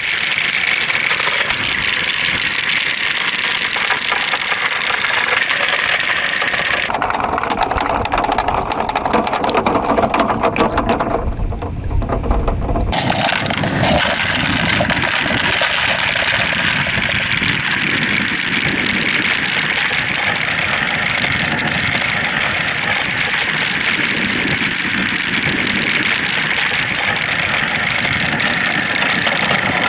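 Many plastic balls rolling and clattering down translucent plastic marble-run tracks, a continuous dense rattling rumble. Between about seven and thirteen seconds in it changes character before settling back.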